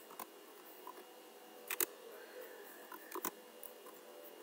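A few separate sharp clicks of keys being typed on a computer keyboard, the loudest just under two seconds in and a quick cluster a little past three seconds, over a faint steady hum.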